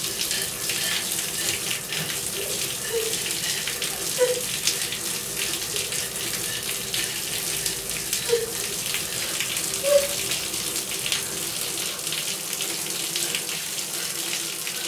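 Water running and splashing in a bathtub, with a few brief pitched sounds over it, the clearest about ten seconds in.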